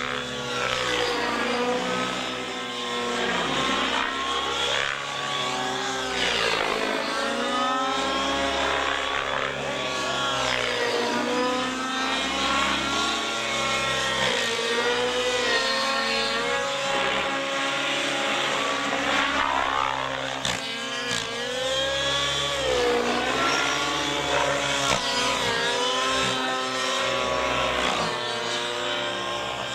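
Align T-Rex 700 nitro RC helicopter in flight, its YS .91 glow engine and rotors running hard. The pitch rises and falls over and over as it climbs, dives and passes by.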